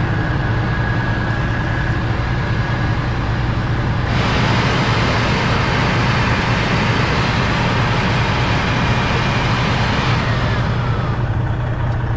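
Newly fitted cab blower motor of a Freightliner Classic being tested: it runs with a faint steady whine, then about four seconds in switches to a much louder rush of air. Near the end it shuts off and winds down with a falling whine, all over a steady low hum.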